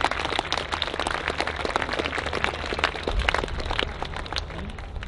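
Outdoor crowd applauding: scattered hand claps over a steady low rumble.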